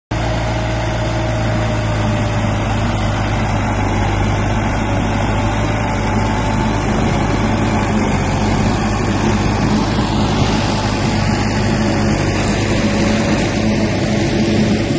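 Preet 6049 tractor's diesel engine running steadily under load, pulling a working super seeder.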